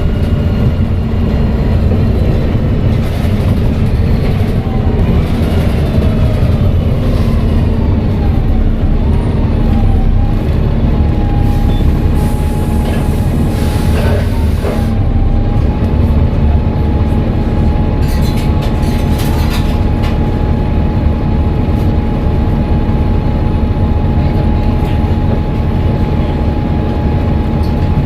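Volvo B7TL bus's six-cylinder diesel running with a steady low rumble and a clear turbocharger whistle. The whistle wavers and glides in pitch through the first half, then holds one steady tone. Brief hissing bursts come near the middle.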